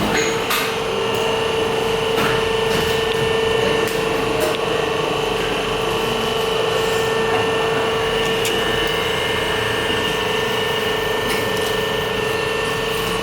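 Factory-floor machinery running steadily with a constant whine, and now and then a faint click or knock.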